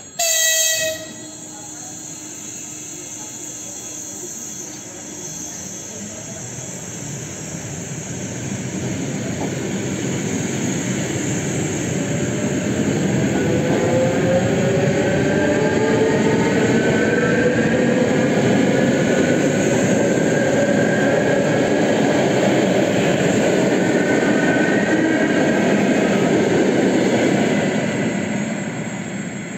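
An EG2Tv Ivolga electric train gives a short horn blast, then pulls away with a steady rail and wheel rumble. The whine of its traction motors climbs slowly in pitch as it speeds up, grows loud, and fades near the end.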